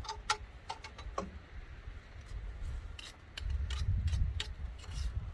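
Scattered light metallic clicks and ticks of a track bolt, nut and bushing being handled and fitted by hand on a skid steer's track. A low rumble comes in a little past halfway.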